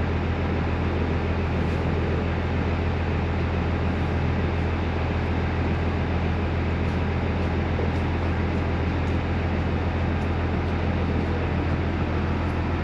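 Interior running sound of the NER Autocar No. 3170 railcar: a constant low engine hum with an even rushing noise over it, unchanging throughout, with a few faint light ticks.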